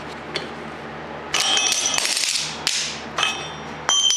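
Steel pieces knocked and set against each other, several sharp metallic clanks with a high ringing after each, starting about a second in.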